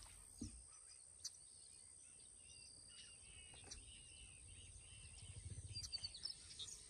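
Near silence with faint outdoor ambience. A few short bird chirps come about three to four seconds in, over a thin steady high tone, with some low rustling near the end.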